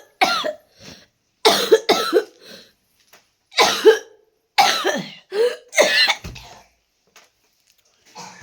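A person coughing in about five loud fits over six seconds, then stopping. It is the cough of a bad cold.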